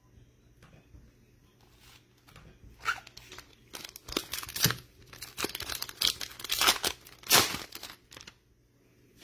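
Foil trading card pack being torn open and crinkled by hand: a run of irregular, sharp tearing and crinkling noises that begins about three seconds in, loudest near the end.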